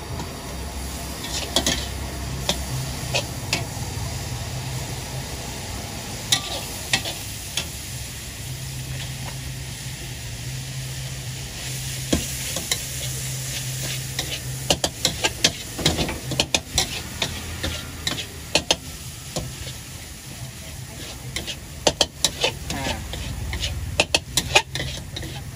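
Stir-fry sizzling in a stainless steel wok as vegetables, meat and rice are tossed, with a metal spatula scraping and clacking against the wok in quick runs of sharp clicks, busiest in the second half.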